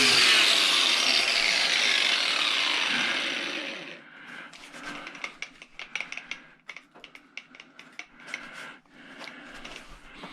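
A power tool's motor running down after being switched off, its whine falling in pitch and fading over about four seconds, followed by scattered scraping and clicking of tools against metal and plastic.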